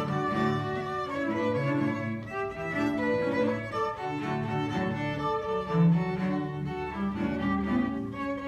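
A small bowed-string ensemble playing an instrumental piece: cello and violin lines over a bass part, with notes moving in a steady pulse.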